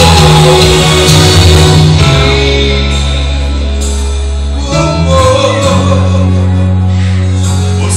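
A song with sustained bass notes and a singing voice.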